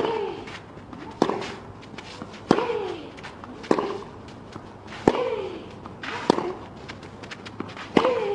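Tennis rally on a clay court: about seven racket strikes on the ball, roughly one every second and a quarter, most of them followed by a player's short grunt that falls in pitch. Light footsteps can be heard between shots.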